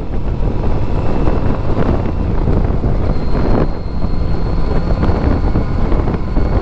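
Wind buffeting the microphone of a Kawasaki Z900RS ridden at road speed, with the bike's four-cylinder engine running steadily underneath. There are two brief whooshes along the way.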